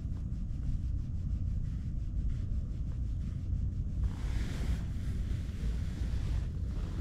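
Wind buffeting the microphone, a steady low rumble, with two brief louder gusts of hiss about four seconds in and again near the end.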